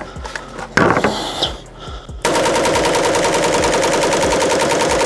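Pioneer Arms 5.56 AK rifle firing one long fully automatic burst of about three seconds, starting a little over two seconds in, with even, rapid shots. It is preceded by a few clicks and some clatter.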